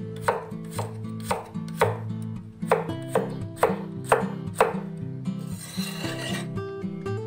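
Cleaver slicing through garlic cloves on a wooden cutting board: sharp knocks about two a second, then a brief scrape of the blade on the board about six seconds in.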